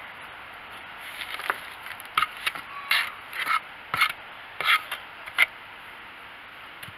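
A small hand trowel scooping a fine mulch and garden-soil mix and tipping it into a planter pot. It makes a quick series of about ten short scrapes and rustles, starting about a second in and stopping after about five and a half seconds.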